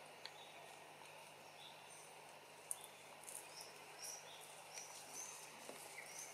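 Faint outdoor forest ambience with small birds giving short, high chirps, several in quick succession in the second half, and a couple of sharp clicks.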